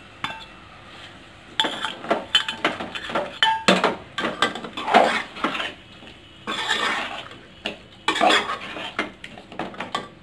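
A steel ladle stirs thick chicken curry in an aluminium pot, mixing in spice powders, with repeated scraping and clinking of metal on metal. It starts about a second and a half in and keeps going in quick strokes.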